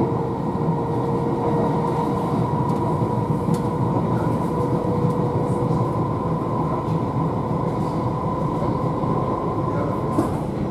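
Cabin running noise of a London Underground D78 stock District Line train under way: a steady rumble of wheels on track with a steady whine over it and a few faint clicks. The whine fades away near the end.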